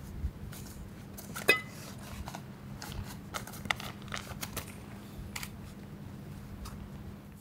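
Small clicks, taps and rustles of objects being handled over a steady low hum, with one sharper click that rings briefly about one and a half seconds in.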